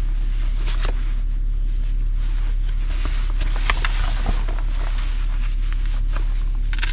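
A steady low hum in a pickup truck's cab, with short rustles and soft knocks of a winter jacket being pulled on.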